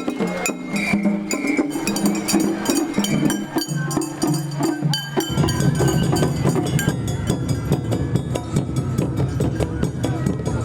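Music: a melody of separate pitched notes over sharp wooden clicks. About five seconds in, it changes abruptly to a denser, busier sound full of clicks.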